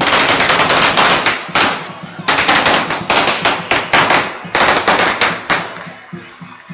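A string of firecrackers going off in a dense, rapid crackle of loud bangs that thins out and stops about five and a half seconds in.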